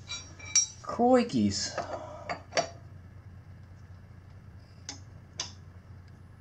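About six sharp metal clinks of a breaker bar and socket being handled on a motorcycle engine's camshaft sprocket bolt, four close together in the first few seconds and two more near the end.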